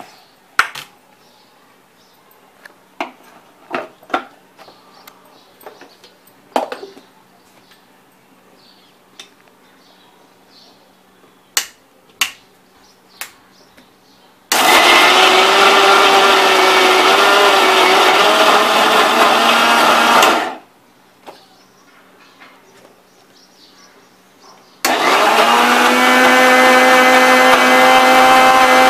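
Light clicks and knocks of soaked chana dal being loaded into a steel mixer-grinder jar. Then the electric mixer-grinder runs in two bursts of about six and four seconds with a pause between, coarsely grinding the soaked dal with a little chilli without water, in small batches.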